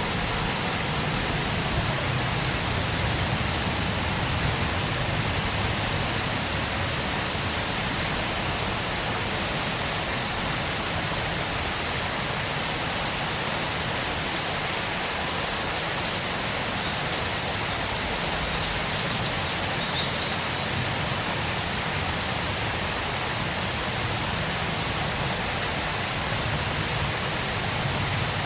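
Waterfall rushing in a steady, even roar of falling water. About two-thirds of the way through, a short run of quick high chirps sounds over it for a few seconds.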